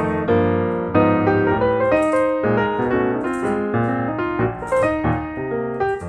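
Piano music, a quick continuous run of notes.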